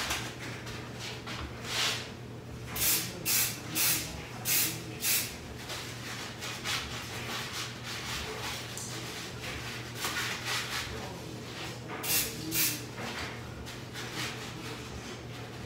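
Aerosol spray-paint can spraying a frosted-glass base coat onto a window pane in short bursts of hiss. There is a quick run of five or six bursts a few seconds in, then a few more after a pause.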